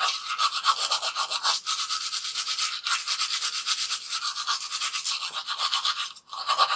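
Toothbrush scrubbing teeth in rapid back-and-forth strokes, a steady scratchy brushing with a brief break about six seconds in.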